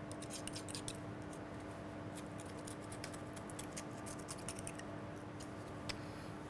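Oyster knife scraping and clicking against an oyster shell as the meat is cut free: a run of faint small clicks and scratches, over a steady low hum.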